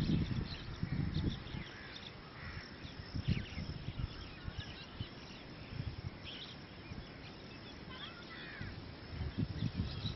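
Wind buffeting the microphone in irregular low gusts, with scattered short bird calls.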